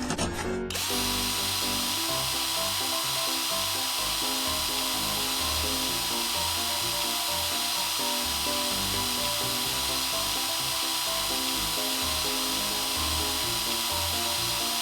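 Cartoon sound effect of a drill truck's rock drill starting up under a second in and then running steadily with a constant whine. Background music plays underneath.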